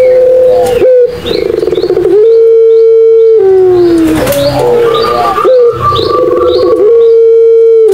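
Puter pelung doves cooing loudly in long drawn-out held notes that slide down at the end, overlapping with trilled, pulsing coos. Short high chirps run over them.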